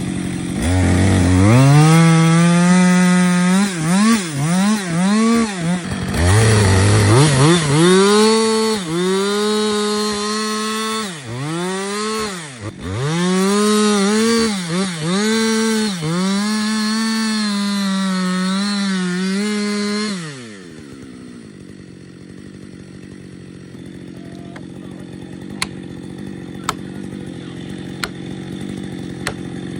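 Chainsaw engine revving hard and cutting, its pitch surging and dipping again and again, then winding down to a quieter steady idle about two-thirds of the way through. A few sharp snaps come near the end.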